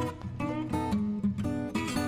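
Background music: an acoustic guitar plays a strummed, plucked melody.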